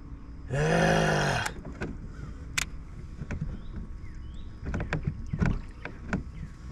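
A man's loud, drawn-out groan about half a second in, rising then falling in pitch, in frustration at a big fish having just broken the line. Then scattered clicks and taps of fishing tackle being handled as the broken line and sinker are brought in.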